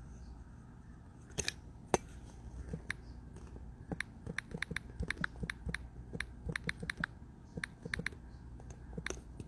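Typing on a keyboard: two single key clicks, then a quick irregular run of clicks from about four seconds in, stopping shortly before the end.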